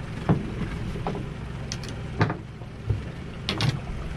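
Steady low rumble of a fishing boat at sea with wind on the microphone, broken by several short, sharp knocks and clacks, two in quick succession near the end.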